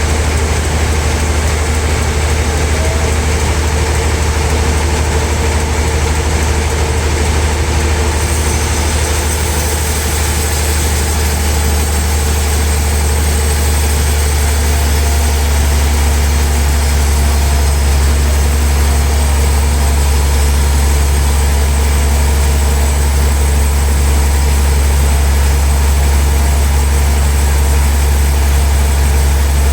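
Sawmill machinery running steadily with a strong low hum and a constant drone, a little louder in the second half.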